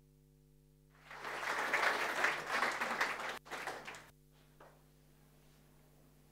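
Audience applauding for about three seconds, with a brief break near the end, then stopping abruptly, leaving a steady low electrical hum.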